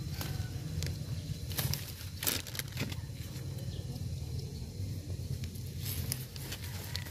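Chili pepper plant leaves and stems rustling and crackling in short bursts as peppers are picked by hand, over a low steady rumble.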